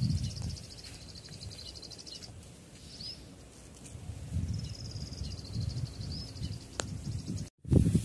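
Outdoor field ambience: a fast, buzzing high trill that sounds twice, a few short chirps, and a low rumble on the microphone underneath. The sound drops out for a moment near the end.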